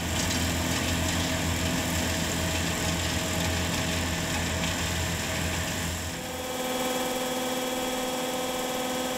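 Iseki combine harvester running while it harvests naked barley, a steady machine hum with a strong low rumble. About six seconds in the rumble drops away and a steadier humming whine takes over as grain pours from the combine's unloading spout into a bag.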